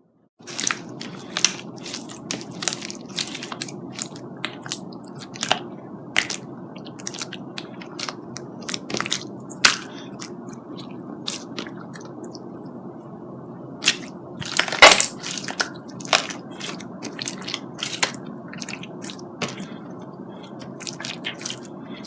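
Slime being squeezed and stretched by hand, with irregular sharp pops and crackles, the loudest cluster about two-thirds of the way through, over a steady low hiss.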